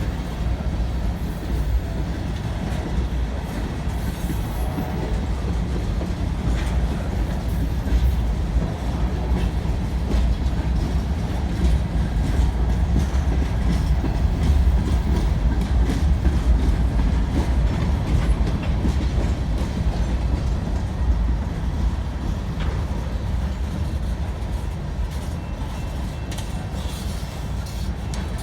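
Freight train cars rolling past: a steady low rumble with the clatter of steel wheels over the rail joints.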